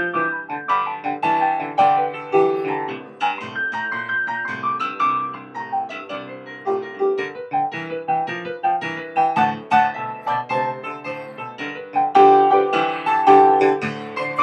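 Solo piano background music, a flowing melody over chords.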